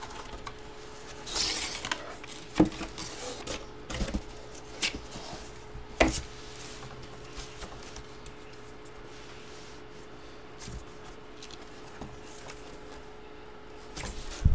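Large cardboard sheets being handled: cardboard rubbing and sliding, with a few sharp knocks in the first six seconds, then mostly quiet with a faint steady hum.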